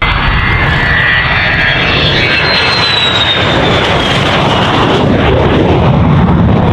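Jet aircraft sound effect: loud, steady jet engine noise with a high whine that falls slowly in pitch.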